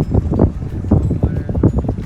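Wind buffeting the microphone in irregular low, rumbling gusts.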